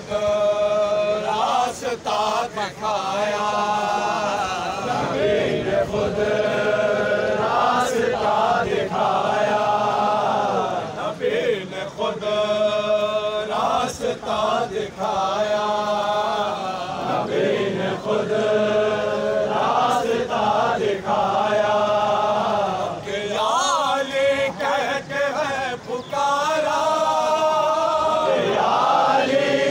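A group of men chanting a noha, a mourning lament, in unison, phrase after phrase with short breaks between them.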